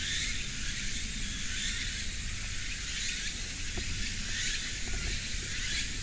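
Outdoor ambience: a steady high-pitched hiss that swells and fades about twice a second, over a low rumble.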